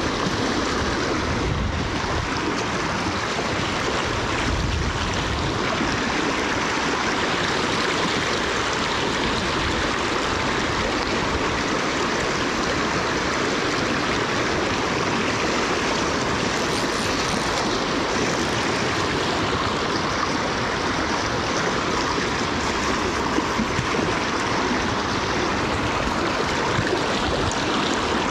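Fast river water rushing steadily over boulders and through rapids, close by.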